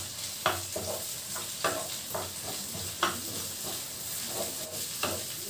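Pounded onions sizzling in a frying pan as a spatula stirs them, with irregular scrapes and taps of the spatula against the pan.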